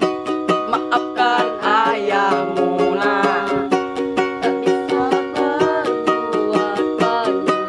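Music: fast, steady strumming on a small plucked-string instrument, about four strums a second, with a sliding, wavering melody line over it between about one and four seconds in.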